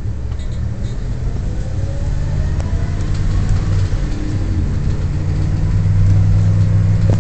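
Car engine and road noise heard from inside the cabin. It rises steadily as the car pulls away through an intersection and picks up speed.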